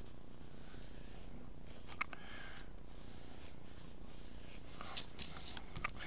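White pencil scratching across black drawing paper in short strokes, a few about two seconds in and a quicker cluster near the end, over a faint steady room hum.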